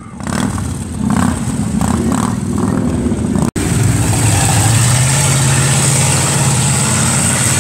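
A vehicle engine running, uneven at first. After a brief cut about halfway through it holds a steady speed to the end.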